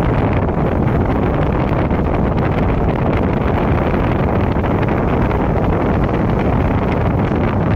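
Steady rush of wind on the microphone and road noise from a moving car.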